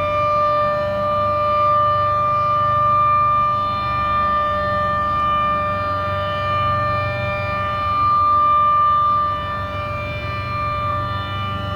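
Federal Signal Model 7B outdoor warning siren sounding its Alert signal: one steady, unchanging pitch with strong overtones, its loudness swelling and easing a little. A low rumble runs underneath.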